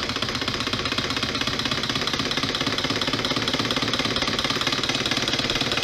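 Twin opposed solenoid engine with a Scotch yoke running fast, its two solenoids firing in a rapid, even rhythm of strokes that grows slightly louder over the first two seconds. Over it runs the whine of the motor driver's pulse-width-modulated supply, whose pulse frequency is in the audible range.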